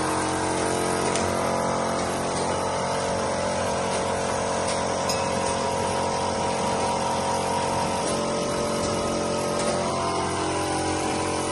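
Automatic bottle-filling machine and its conveyor running: a steady motor hum with a few faint ticks, its pitch shifting slightly near the end.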